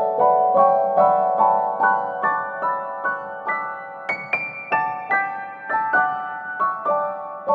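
Gentle piano music: a melody of evenly paced single notes that climbs to a high point about four seconds in, then falls back.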